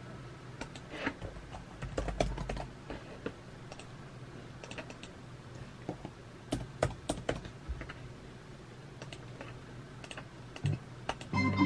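Typing on a computer keyboard: irregular runs of key clicks with short pauses between them, busiest in the first few seconds and again around the middle.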